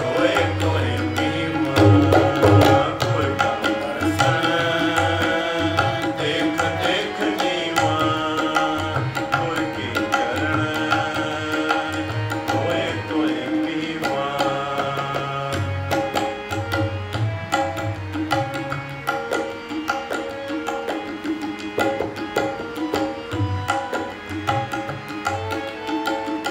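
Harmonium and tabla playing an instrumental passage of Sikh shabad kirtan. The harmonium holds a sustained melody over a steady run of tabla strokes, with deep booms from the bass drum.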